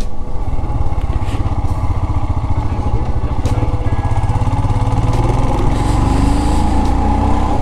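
Royal Enfield Himalayan's 411 cc single-cylinder engine running steadily as the motorcycle is ridden, its rapid even firing pulses clearly heard.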